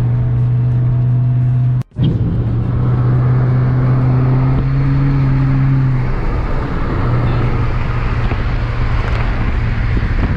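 Steady low drone of a car's engine and exhaust at highway cruising speed, heard from inside the cabin over road and wind noise. The sound drops out briefly about two seconds in, and the drone fades into the road noise about six seconds in.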